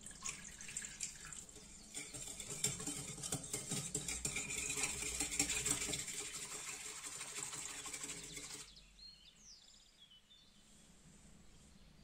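Water poured from a glass into a ceramic bowl, then a metal balloon whisk stirring the liquid briskly, a fast run of small clinks and swishes against the bowl that stops suddenly about three seconds before the end.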